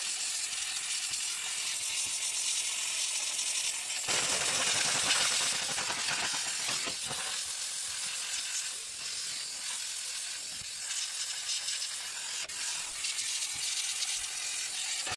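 A steam cleaner jet hissing steadily as steam is blasted onto an air fryer's heating element and fan cover. It gets louder and fuller about four seconds in for a couple of seconds, then eases back.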